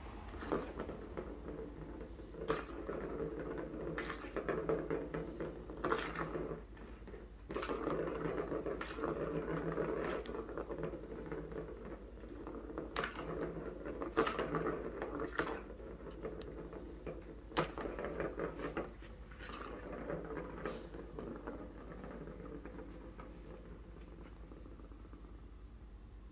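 Cats batting at a ball toy: a ball rolls and rattles with an uneven rumble, broken by irregular sharp clicks and knocks about every second or two. The rumble dies down over the last few seconds.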